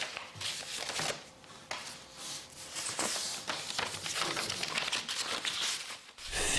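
Sheets of paper being handled at a desk: irregular rustling and crinkling with small taps as the pages are shuffled and turned.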